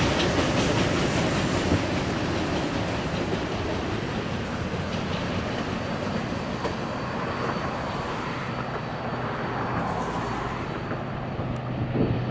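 Double-stack intermodal freight cars rolling past on the rails, a steady rumble of wheels on track that dies away as the last cars go by.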